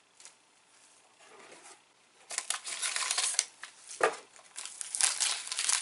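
Crinkling of a soy sauce rice cracker's plastic wrapper being picked up and handled. It starts about two seconds in and goes on in loose bursts, with a light knock about four seconds in.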